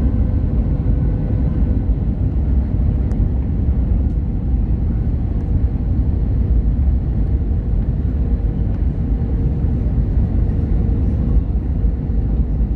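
Steady cabin rumble inside an Airbus A321neo descending on approach: engine and airflow noise with a faint steady hum.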